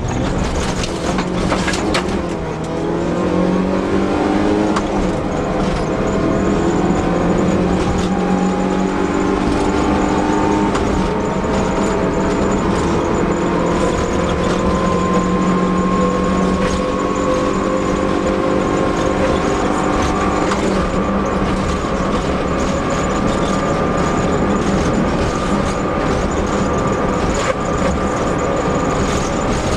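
Fiat Seicento Sporting Abarth rally car's small four-cylinder engine pulling hard on a special stage. The note dips briefly about two seconds in, then climbs slowly and steadily in pitch for most of the time before levelling off at high revs, with occasional knocks from the car over the road.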